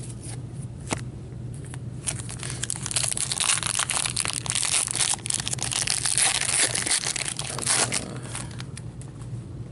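Foil wrapper of a 2015-16 Upper Deck MVP hockey card pack crinkling and tearing as gloved hands rip it open, the crackle starting about two seconds in and easing off near the end. A single click comes about a second in.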